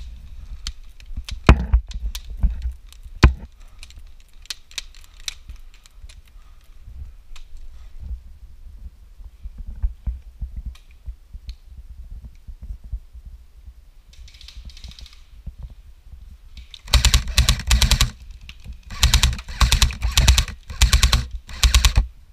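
Airsoft electric guns firing: a few single shots in the first few seconds, then several long full-auto bursts in the last five seconds, each a fast, even stream of clicks.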